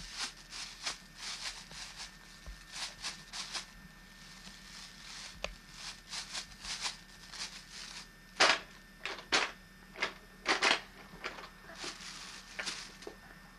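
Paper bag crinkling and rustling as a baby's hands crumple it, in short irregular bursts, with a few louder crackles past the middle.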